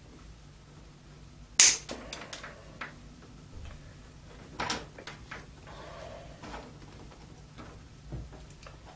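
Small clicks and faint scraping of a blade scoring and cutting the outer insulation of a white mains flex, with a sharp click about one and a half seconds in and another near five seconds.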